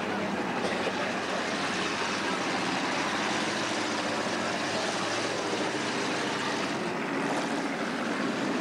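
Several saloon race cars' engines running at speed around a dirt speedway track, heard from a distance as a steady blended engine noise.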